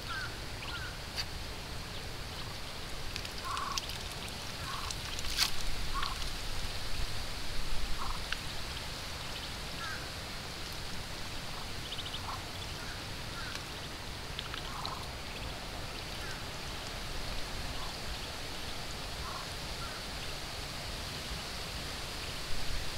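Muscovy duck hen and her five-day-old ducklings giving soft, short calls now and then, scattered through, over steady low background noise.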